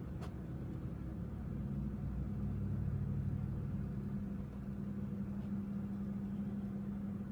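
A steady low mechanical hum with a few held low tones, swelling slightly a few seconds in, and a single faint click near the start.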